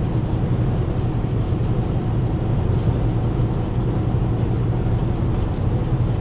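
Steady low rumble of engine and road noise heard inside a Ford vehicle's cabin, even throughout with no change.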